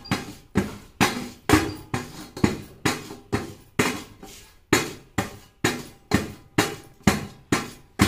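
Two wooden sticks beating a steel plate (thali) in a steady rhythm, about two ringing strikes a second. The beating is the ritual of opening Ganpati's ears.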